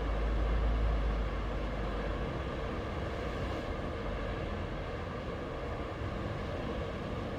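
Sea waves breaking and washing on the shore: a steady surf hiss with a heavier low rumble in the first two seconds that then eases off.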